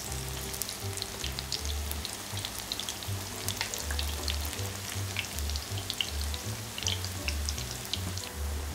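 Natto, jako and vegetable tempura frying in a pan of hot oil: a steady sizzle with scattered small pops and crackles. Low background music notes run beneath it.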